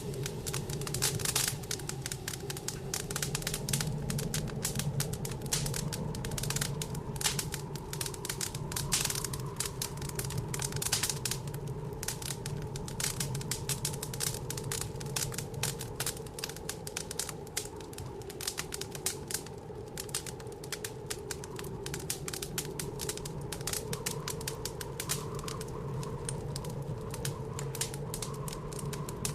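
Wood fire crackling in a fireplace: a dense, irregular stream of small pops and snaps. A steady low drone runs underneath, the wind of a blizzard outside.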